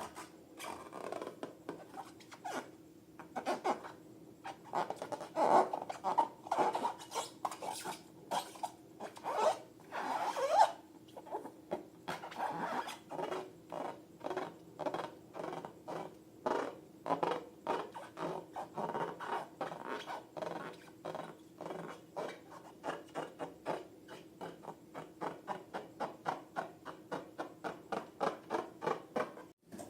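Slime being mixed and worked by hand: a long run of short wet rubbing and scraping strokes, louder in the first third and settling into a quick, even rhythm of about two strokes a second near the end, over a faint steady hum.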